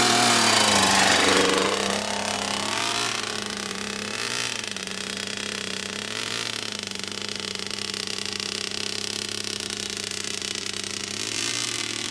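A child's mini motocross bike engine running, loudest as it passes close by in the first couple of seconds, then quieter and steady as it rides away, with two brief small rises in revs.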